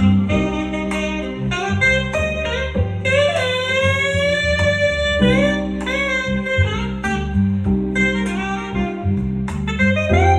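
Smooth jazz: a saxophone melody over guitar and bass, with one long wavering held note about three to five seconds in.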